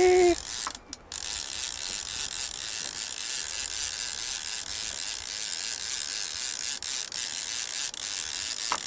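Fishing reel being cranked to wind line in against a hooked fish, its gears running steadily.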